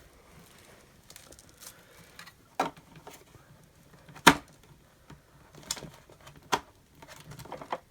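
Hard plastic clicks and knocks from the flexible hose of a Beldray Turbo Swivel vacuum cleaner being pushed into the air inlet and twisted into place. There are four or so separate knocks, the loudest a sharp click about four seconds in.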